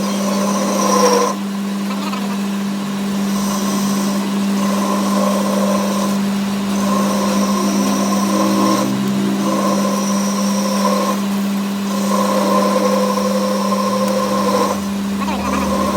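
A machine motor running with a steady hum, and a higher whine over it that cuts in and out every couple of seconds.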